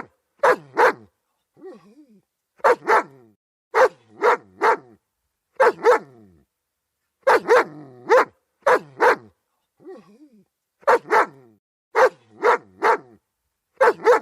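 German Shepherd dog barking repeatedly, its loud barks coming in quick runs of two or three with short pauses between. A fainter, lower sound comes twice in the pauses.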